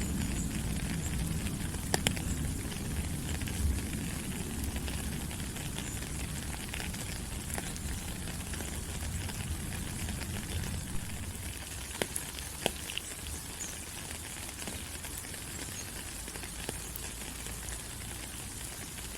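Steady rain falling on rainforest leaves: a dense, even hiss with scattered sharper drip ticks. A low rumble underneath fades out over the first half.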